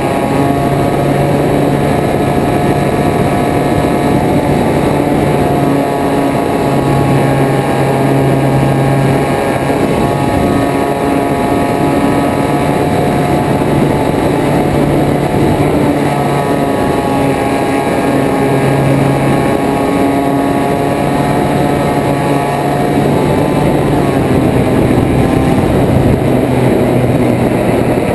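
Small propeller aircraft's engine running steadily in flight, with wind rushing past the airframe; the engine's pitch shifts slightly up and down a few times.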